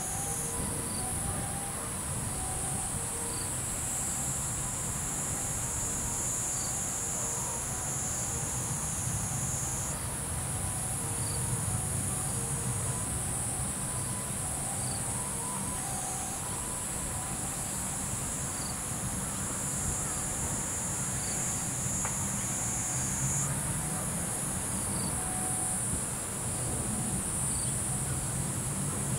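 A dense chorus of insects shrilling steadily at a high pitch, over a low steady rumble.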